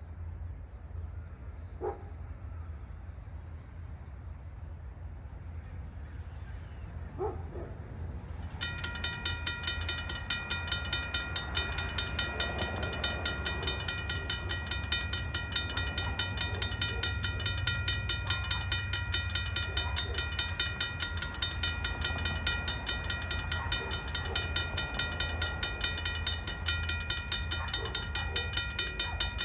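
Railroad crossing warning bell starts suddenly about a third of the way in and rings in fast, even strokes, the signal that a train is approaching the crossing. A low rumble lies underneath.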